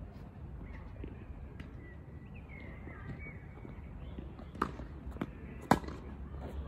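Tennis rally starting: a few sharp pocks of racquet strings hitting the ball and the ball bouncing on the hard court, beginning about two-thirds of the way in, with the loudest pock near the end. Before that a bird chirps briefly over the outdoor background.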